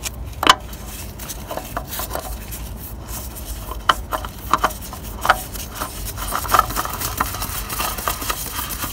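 Close handling noise from a thin plastic glove rubbing and knocking near the microphone while a new oil filter is screwed in by hand: rustling with scattered sharp clicks.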